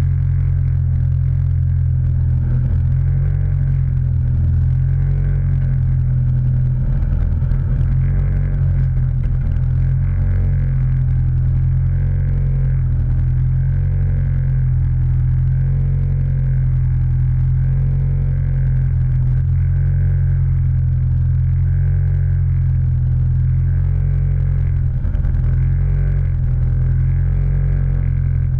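A vehicle's engine running at a steady speed, a constant low drone that neither rises nor falls.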